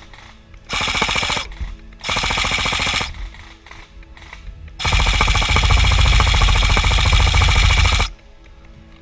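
Kriss Vector airsoft electric gun (Krytac AEG) firing on full auto in three bursts: a short one about a second in, another of about a second, then a long burst of about three seconds.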